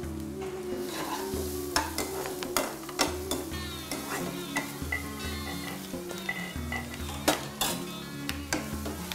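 Chopped onions frying in coconut oil in a nonstick pan, sizzling steadily, while a spatula stirs them and clicks and scrapes against the pan many times.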